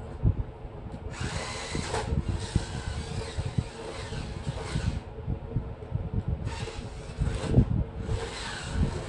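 Electric drive motors of a two-wheeled RC stunt car whirring in several bursts as it is driven and spun, with knocks and rattles from its wheels on the tiled floor.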